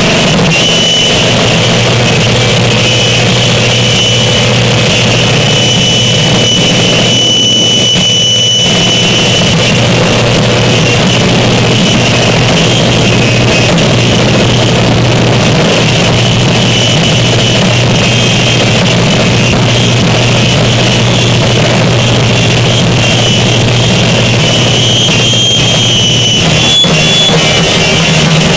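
Harsh noise music: a loud, unbroken wall of distorted noise with a thin, steady high whine that comes and goes over a low hum.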